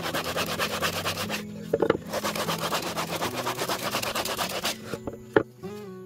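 Hand sanding of a wooden board with a sanding sponge: quick back-and-forth scraping strokes, about five a second. They pause briefly about a second and a half in, where there is a sharp knock, and stop near the end. Near the end a few sharp clicks sound as wooden pieces are set down on a box.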